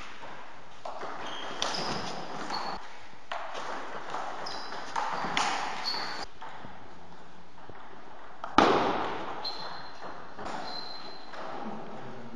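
Table tennis rallies: the ball clicking off the bats and the table in quick runs of strokes, echoing in a large hall. One loud sharp crack with a ringing tail stands out about eight and a half seconds in.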